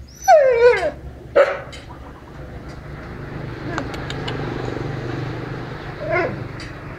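Dog whimpering: a long whine falling in pitch near the start, a short yip about a second later, and another brief whine near the end.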